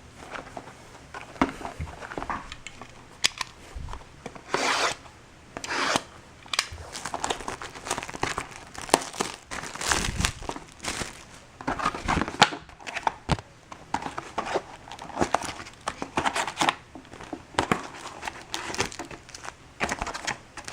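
Plastic shrink wrap being torn and crinkled off a sealed box of trading cards, then the cardboard box opened and the card packs pulled out, in a run of irregular rips and rustles.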